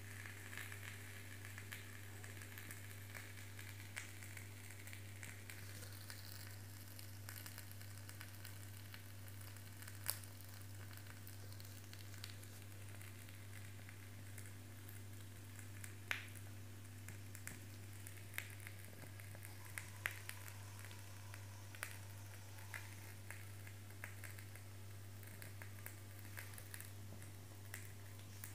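Small flames in foil-lined metal cups burning with a faint, steady sizzle and crackle, broken by scattered sharp clicks, over a steady low hum.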